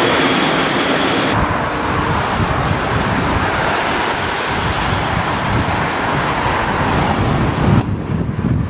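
For about the first second, the rolling noise of a train that has just passed. Then a sudden change to wind buffeting the microphone: a heavy low rumble over a steady hiss.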